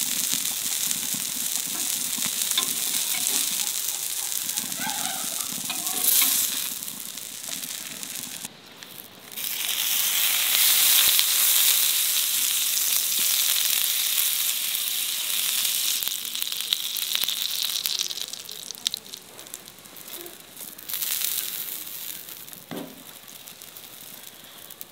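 Sizzling on a hot flat griddle pan: chicken patties frying, then fat spread over the hot pan hissing loudly from about ten seconds in and dying down toward the end. A single sharp knock near the end.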